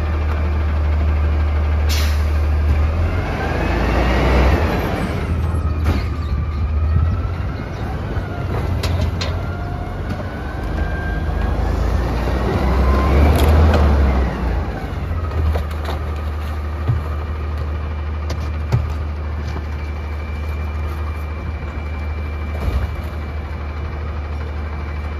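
Autocar Xpeditor front-loader garbage truck idling, its engine revving up and back down twice to drive the hydraulics as the front forks lower the carry can. A few knocks of trash cans being emptied into the steel carry can.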